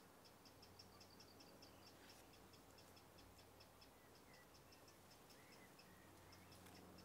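Near silence: quiet outdoor ambience with a faint, fast, regular high ticking, several ticks a second, and a few faint short chirps around the middle.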